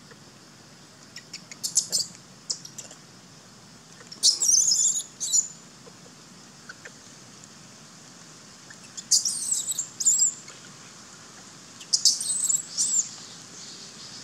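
A bird chirping in short high-pitched phrases, four bursts a few seconds apart.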